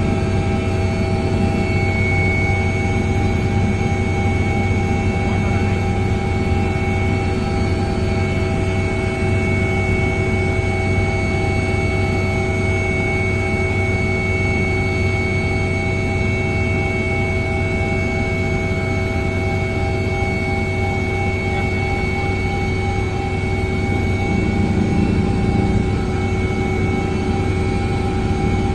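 Helicopter in flight heard from inside the cabin: a steady low drone with several constant high-pitched whining tones over it, unchanging throughout.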